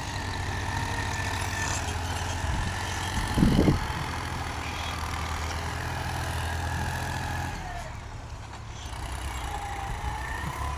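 Mahindra tractor's diesel engine running steadily as it pulls a tine cultivator through a paddy field, with a short, louder bump about three and a half seconds in. The engine sound drops to a weaker hum about two thirds of the way through.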